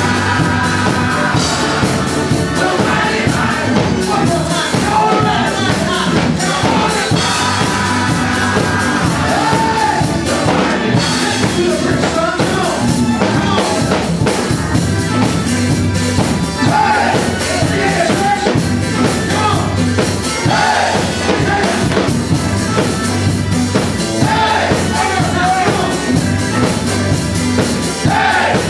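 Men's gospel choir singing to an accompaniment with drums, with hands clapping along to the beat.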